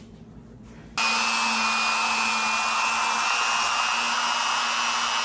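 Handheld electric power tool switched on about a second in, then running steadily with a constant whine and hiss.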